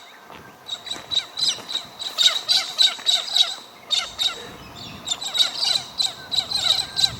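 Birds chirping and calling in quick, repeated bursts throughout, over a faint steady high-pitched insect drone.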